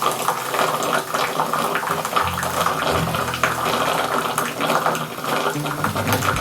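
Liquid bubbling and running with a steady gurgling hiss, as in an Esbit stainless steel camping coffee maker brewing over its solid-fuel tablet.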